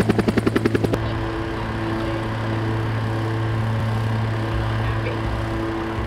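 Bell UH-1 Huey helicopter's two-blade main rotor beating in a rapid, even rhythm of about ten beats a second. The beating cuts off abruptly about a second in, leaving a steady low drone with a few held tones.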